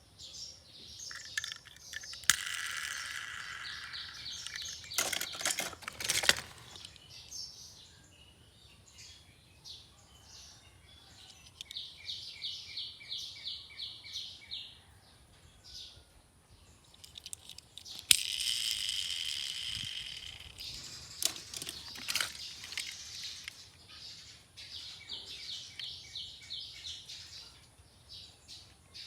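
Birds chirping in rapid repeated trills, with two longer bursts of chirping and a few sharp clicks in between.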